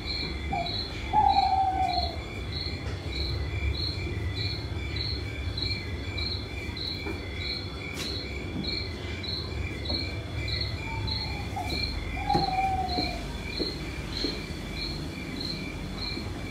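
Crickets chirping steadily, about three chirps a second, over a low hum. A short falling whistled call sounds twice, loudest about a second in and again near twelve seconds.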